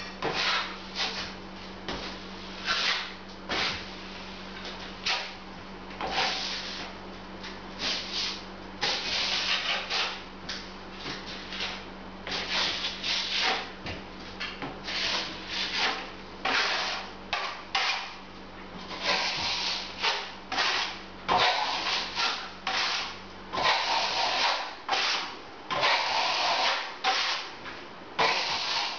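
Plastering trowel scraping base compound across a plaster ceiling join in repeated short strokes, feathering it out over the joint.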